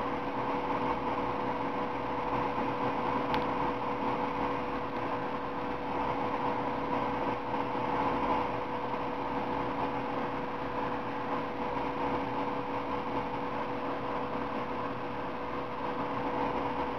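A steady mechanical hum with a constant low tone, unchanging throughout, with one faint click about three seconds in.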